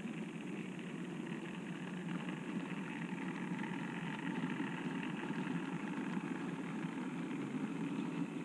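Model steam locomotive, an OO gauge BR Standard Class 5, and its train of cattle wagons running past on the track: a steady mechanical hum and rattle of motor and wheels, growing a little louder as it nears.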